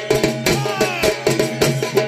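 Folk percussion for the Paika dance: drums and hand-held brass gongs beaten in a fast, dense rhythm, about six strokes a second, over steady metallic ringing. A short wavering high tone rises and falls near the middle.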